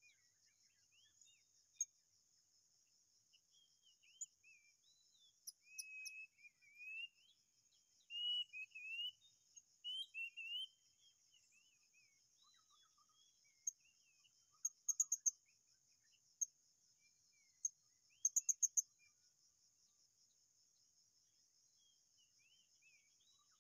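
Small birds calling over a steady, high insect drone. A run of slurred, warbling whistles comes in the middle, then two quick clusters of sharp, very high chirps about three seconds apart.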